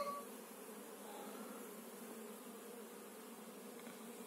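Faint, steady hum of a honeybee colony swarming over an opened hive and a frame of bees. At the very start, the ringing of a metallic clink dies away.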